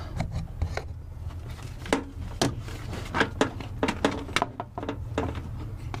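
Hard plastic interior trim panel clicking, knocking and rattling as hands work it free of its clips, an irregular string of sharp taps over a low steady hum.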